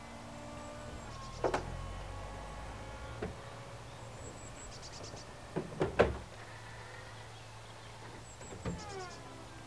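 Opel Astra TwinTop's electric folding hard top in operation: a steady motor whine that shifts in pitch, broken by several clunks as the boot lid and roof sections move and lock, the loudest about six seconds in.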